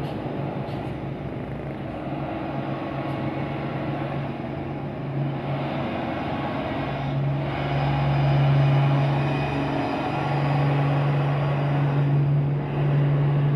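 Heavy diesel trucks passing close by, engines running in a steady low drone that grows louder about halfway through.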